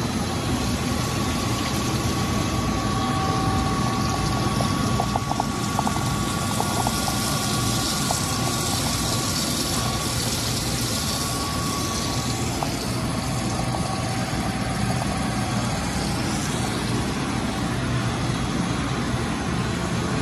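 BLOHM Precimat CNC creep-feed grinder running, with coolant spraying over the grinding wheel and workpiece. The sound is a steady hum and a few steady tones under a constant hiss.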